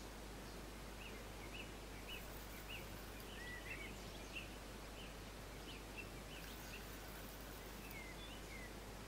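Faint birdsong: short chirping notes repeated about every half second, over a steady outdoor hiss.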